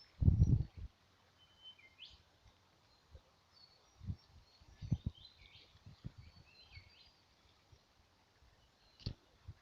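Birds chirping and calling in short scattered notes, with a few dull low thumps, the loudest just after the start.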